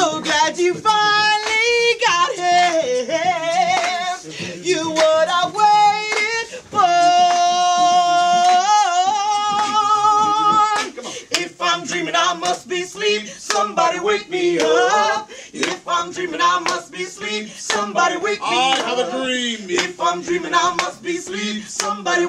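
A woman and men singing a cappella in a small, reverberant room: long held notes in the first half, then quicker, choppier vocal lines over sharp hand claps and hand rubbing from about halfway through.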